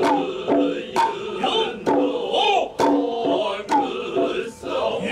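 Noh hayashi accompaniment for a dance: drum strikes about once a second, each joined by the drummers' drawn-out kakegoe calls, over the high, wavering line of the nohkan flute.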